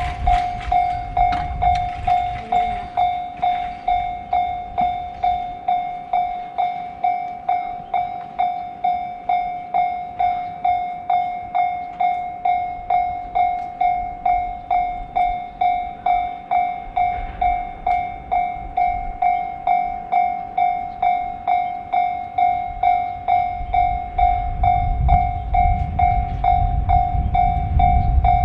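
Japanese railroad crossing warning bell ringing steadily, a repeating electronic clang at a little under two strikes a second, signalling that a train is due. In the last few seconds the low rumble of the approaching train builds beneath it.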